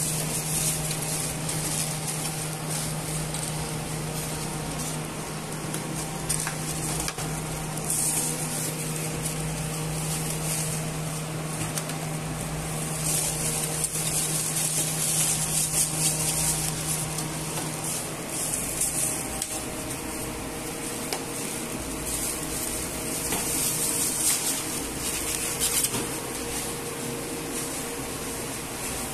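Kitchen clatter of serving utensils scraping and tapping a metal tray of meat stew as it is ladled into foam takeaway boxes, over a steady hum that stops about two-thirds of the way through.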